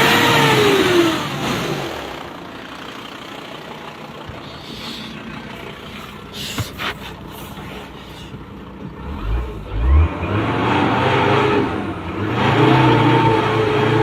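Car engine revving, its pitch rising and falling, then dropping away. Near the middle come a few sharp knocks and low thumps, after which the engine runs steadily and grows louder near the end.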